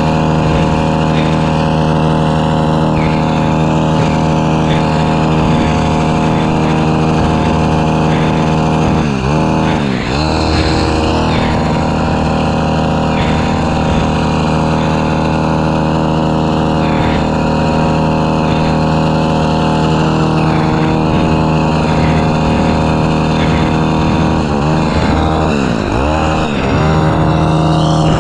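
Pole hedge trimmer running steadily while cutting a ficus hedge, its motor pitch dipping and recovering twice, about a third of the way in and near the end.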